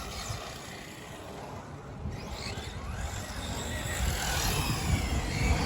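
Two brushless-motor RC trucks, a Traxxas Slash 4x4 VXL and an HPI Bullet, racing off after a start countdown, their motors whining with faint rising and falling pitch; the sound grows louder over the last few seconds as they come back.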